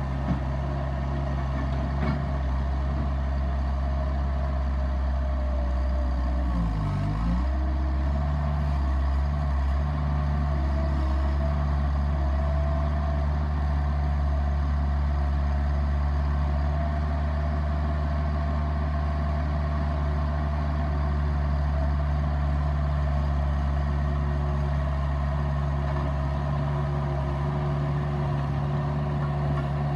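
Bobcat S175 skid steer's diesel engine running steadily at a constant speed. About seven seconds in, its pitch dips briefly and then recovers.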